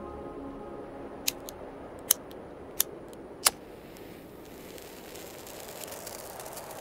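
A few short, sharp clicks and snaps, about seven in two seconds with two louder ones, from hands handling a playing card and a felt-tip marker.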